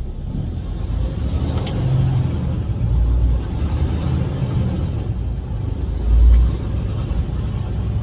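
Semi truck running down the road, heard from inside the cab: a steady low engine and road rumble, with a short heavier low thump about six seconds in.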